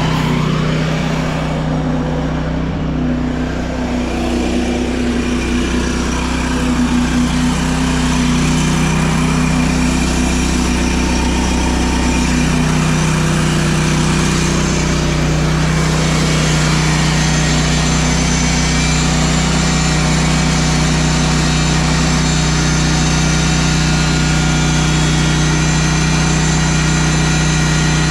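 An engine running steadily at a constant speed. Its tone shifts slightly in the first few seconds, then holds even.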